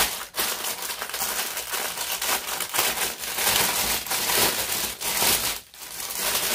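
Clear plastic bag crinkling and rustling as hands handle it, in irregular scrunches, with a short pause a little before the end.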